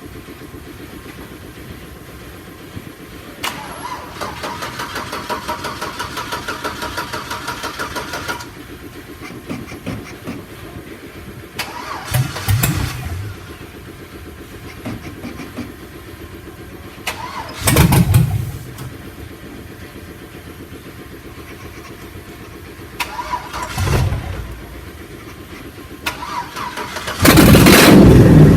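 LS3 6.2-litre V8 swapped into a Chevrolet Impala, running with a pulsing, whirring stretch early on. It then gives three short throttle blips about six seconds apart and a longer, louder rev near the end.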